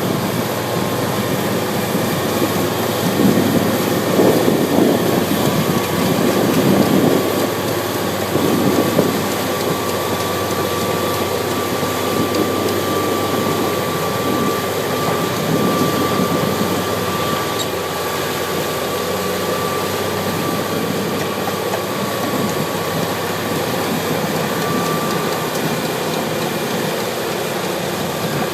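Komatsu D155AX-5 bulldozer's six-cylinder diesel engine running steadily, with a thin steady whine over it that stops near the end. The sound is louder and rougher for a few seconds, from about three to nine seconds in.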